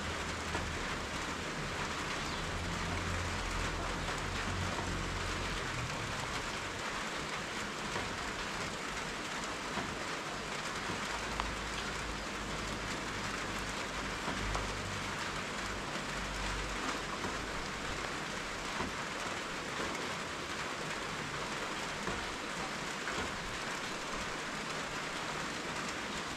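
Steady rain falling on surfaces, with scattered louder drops, and a low rumble that comes and goes underneath.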